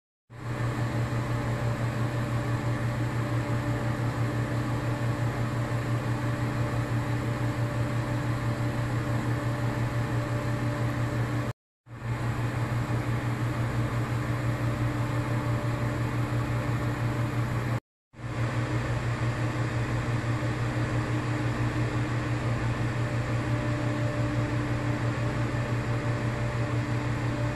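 Steady fan-like mechanical hum with hiss and a strong low drone. It cuts out briefly twice, about twelve and eighteen seconds in.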